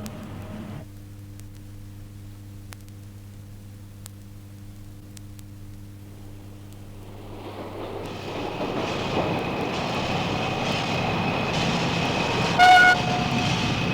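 Vintage sound-effect recording: a steady low hum, then a rumbling noise that swells up over a couple of seconds and holds, with one short horn toot near the end, like a vehicle drawing near and sounding its horn.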